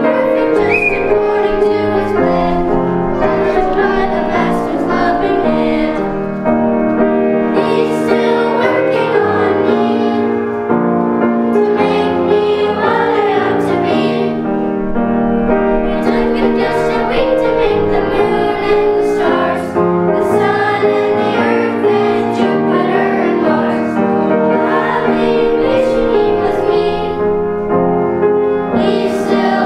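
Children's choir singing a song with piano accompaniment.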